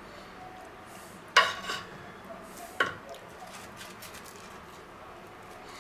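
Metal kitchen tongs clacking as they are set down in a clay roasting pot: two sharp knocks about a second and a half apart, the first and louder one with a short metallic ring.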